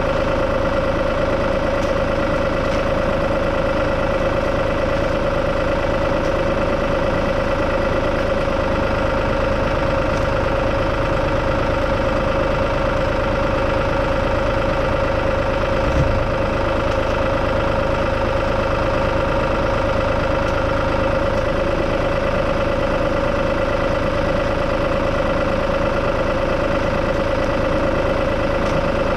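Tractor engine running steadily, with a constant whine over the engine note and one short knock about halfway through.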